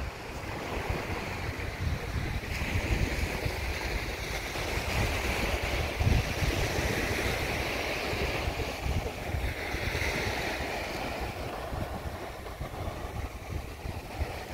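Small waves breaking and washing up a sandy beach, the hiss of the surf swelling and easing, with wind buffeting the microphone in a low, gusty rumble.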